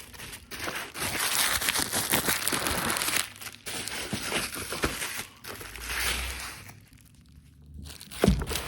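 Mail packaging being torn open and crumpled by hand: dense crinkling and tearing for about five seconds, then it goes quieter before a few knocks near the end.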